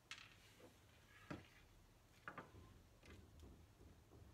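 Faint, scattered taps and knocks of small objects being set down and shifted on a wooden table, about five in all, over near-silent room tone.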